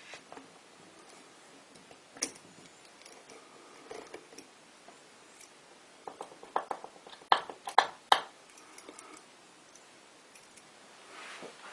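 Light clicks and taps of small hard parts and tools being handled on a workbench during work on a model locomotive, with a quick run of sharper clicks about seven to eight seconds in.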